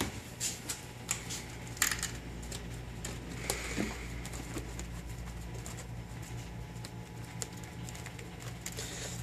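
Light taps, clicks and scrapes of hands handling a cardboard calculator box on a desk and picking at its seal sticker, over a steady low hum.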